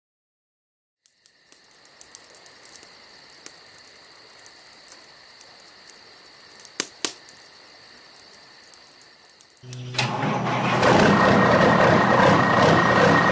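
Faint steady high-pitched chirring, like crickets, with a few sharp clicks. About ten seconds in, a truck engine starts and keeps running loudly.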